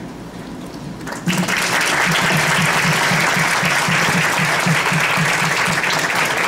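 Audience applauding, starting suddenly about a second in and going on steadily.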